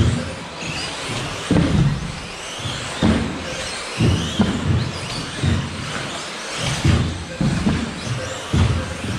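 1/10-scale 2WD electric off-road RC buggies racing: their motors whine up and down in pitch with the throttle, with repeated low thumps roughly every second.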